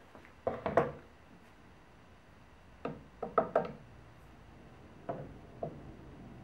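Short wooden knocks and small metallic clacks in three brief clusters as a wooden cabinet door is laid on a workbench and steel cup hinges are handled and set into their drilled recesses.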